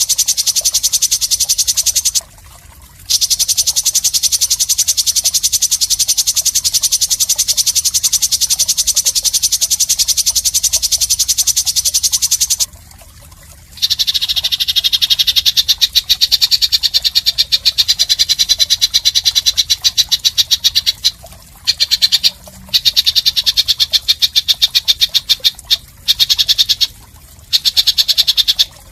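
Harsh, high-pitched buzzing rattle from a songbird-training call recording: very rapid notes in long runs of several seconds, broken by short pauses.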